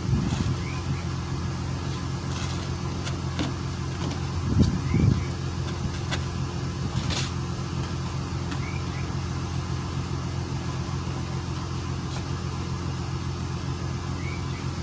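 Steady low drone of a fishing boat's engine running, with a few light clicks and knocks and a brief low rumble about four and a half seconds in.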